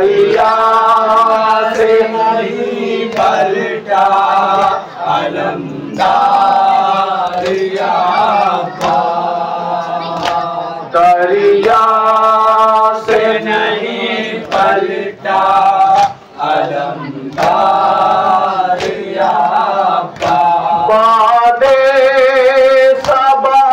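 A group of men chanting an Urdu noha in unison, led by one voice through a microphone, in repeated held phrases. Sharp slaps of hands striking chests (matam) fall in time with the chant.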